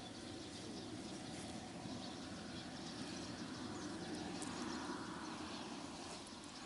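Faint, steady background noise: an even low haze with no distinct event.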